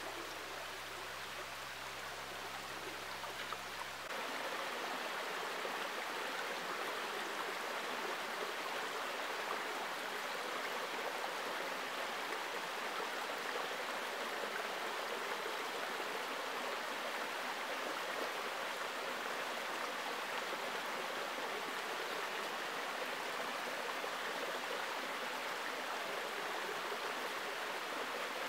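Shallow forest creek running over stones and pebbles: a steady rushing babble of water, which steps up louder and fuller about four seconds in. Before that the water is quieter, with a faint low steady hum under it.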